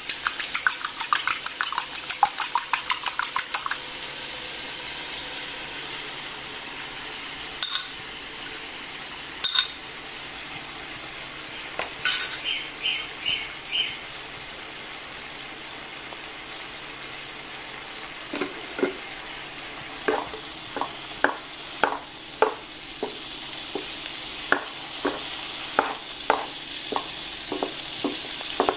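A fork whisking egg in a ceramic bowl, a quick run of clinks, for the first few seconds. Then egg and chicken Chinese sausage cooking in a little simmering water in a nonstick pan, a steady low sizzle broken by a few sharp clinks. From about two-thirds through, a wooden spatula knocks and scrapes in the pan, a stroke every second or so.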